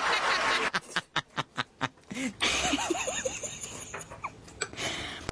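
Close-up eating sounds of a man chewing food: a quick run of about seven crunchy clicks, then short high squeaky sounds.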